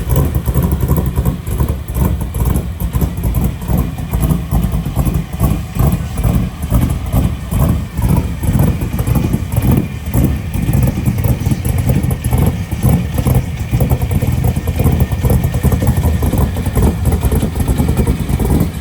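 A race car's engine running loud at an uneven, pulsing idle.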